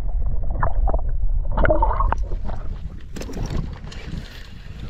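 Muffled underwater rumble and gurgling of water around a camera held below the surface as a fish is released, with a few splashy swirls about halfway through. About three seconds in it changes abruptly to open-air sound: light wind hiss and scattered small clicks from a spinning reel being handled.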